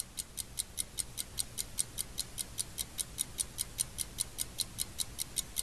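Steady rapid ticking, about five ticks a second, over a faint low hum.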